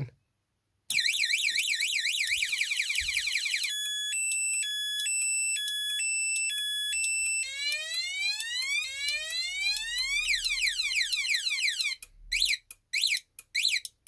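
Cheap motorcycle/moped anti-theft alarm siren set off by tapping the unit's shock sensor, really seriously loud. It cycles through its tones: a fast warble, then a two-tone high-low alternation, then rapid rising whoops. It cuts off about twelve seconds in, followed by a few short chirps.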